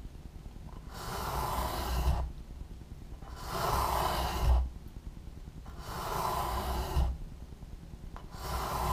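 Light strokes of a hand file rasping through a carbon-fibre skin down to the Kevlar hinge layer of a foam-core wing. There are four strokes, each about a second long, coming roughly every two and a half seconds.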